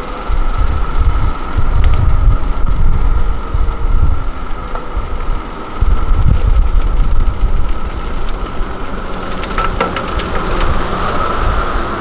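Hyundai Trago 25-tonne dump truck's diesel engine running while its hydraulic hoist tips the loaded bed, with a steady high whine over the rumble. A brief patter of clicks about ten seconds in.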